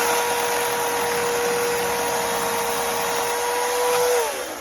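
Chainsaw running at full throttle with a steady high whine, then the throttle is let off about four seconds in and the pitch slides down as the saw winds down.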